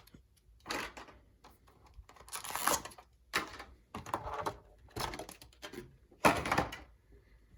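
Cardboard and plastic packaging of a collection box being handled, as a string of short rustles and scrapes. The loudest comes about six seconds in.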